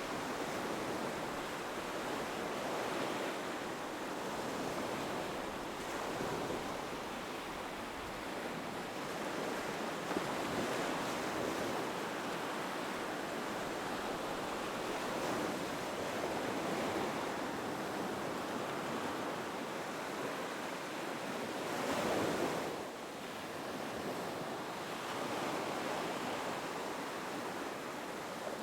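Ocean waves breaking and washing up on a beach, a continuous rush that swells and ebbs, with one stronger surge near the end.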